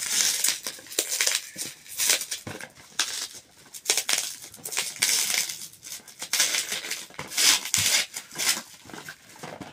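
Plastic bubble wrap crinkling and rustling in repeated bursts as it is pulled and peeled off a small cardboard box by hand.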